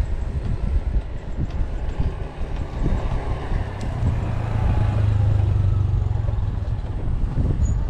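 Strong wind buffeting the microphone, a gusty low rumble throughout. A steady low hum swells for about two seconds in the middle.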